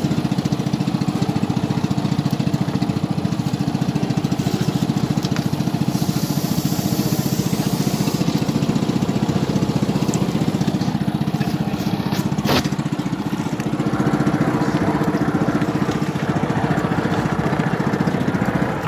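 Small engine running steadily with a fast, even beat, with one sharp click about twelve seconds in.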